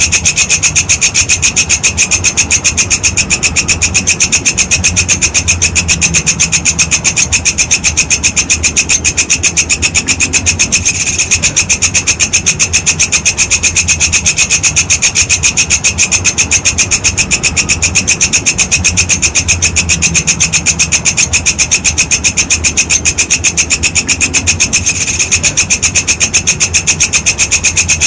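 Walang kecek insect stridulating: a loud, fast, steady train of shrill raspy pulses, with brief falters about eleven seconds in and again near twenty-five seconds.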